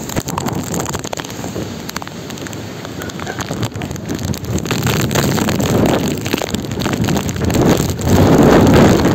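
Typhoon wind and heavy rain, with gusts buffeting the microphone and many sharp taps of drops. The gusts build and are loudest about eight seconds in.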